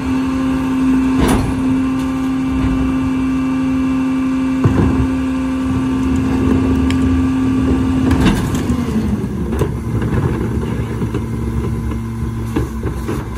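Mack LR rear-loader garbage truck running steadily with a strong humming drone that drops slightly in pitch about two-thirds of the way through. Over it come several loud bangs and clatters as wheeled trash carts are tipped by hand into the Leach Alpha III hopper.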